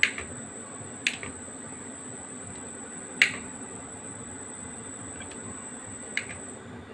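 Kitchen knife clicking against a ceramic plate as it cuts through soft paneer: four sharp clicks a second or two apart, the loudest about three seconds in, over a steady high-pitched whine.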